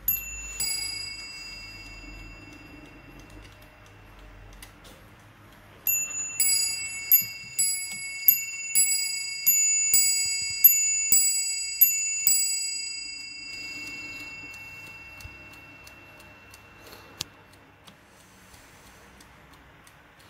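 Warmink Dutch bracket clock striking on its two bells. One ding-dong pair sounds at the start, then about six ding-dong pairs follow from about six seconds in, the bell tones ringing on and dying away. Faint ticking runs underneath, and a sharp click about seventeen seconds in cuts the ringing off.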